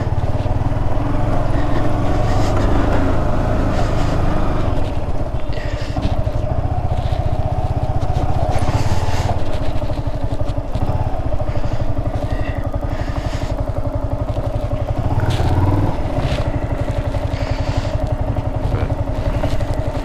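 Yamaha R15's single-cylinder engine running steadily at low revs as the motorcycle rolls slowly and pulls up.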